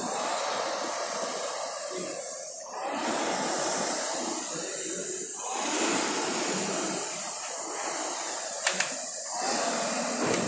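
Concept2 rowing machine's air-resistance fan flywheel whirring as someone rows hard, the rush swelling and fading with each stroke about every two and a half to three seconds.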